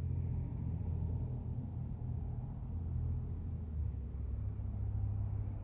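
Car engine running, heard from inside the cabin as a steady low rumble.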